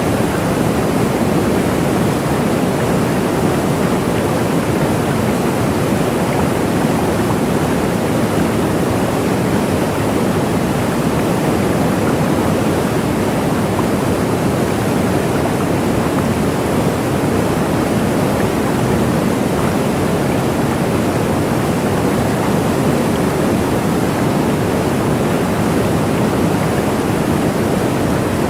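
Waterfall: water falling in a steady, unbroken rush, fullest in the low and middle range.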